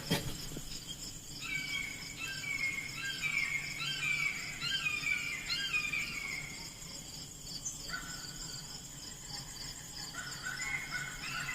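Outdoor ambience: insects trilling steadily at a high pitch while a songbird sings runs of short falling notes, pausing about eight seconds in and starting again near the end. A single sharp click at the very start.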